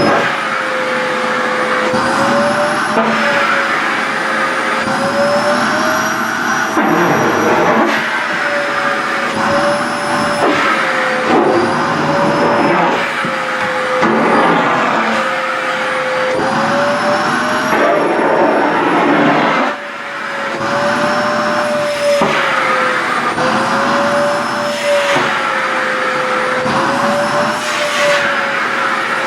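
SHARP EC-KP7F-A vacuum cleaner running continuously, its motor whine wavering slightly in pitch while the rush of air swells and eases as the nozzle draws at skirt fabric; the sound dips briefly about two-thirds of the way through.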